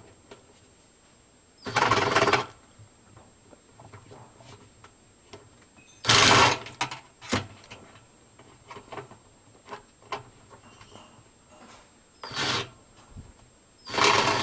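A power drill/driver run in three short bursts of under a second each, with another starting near the end, working a fastener inside a washing machine's cabinet. Light clicks and knocks of tools and parts come between the bursts.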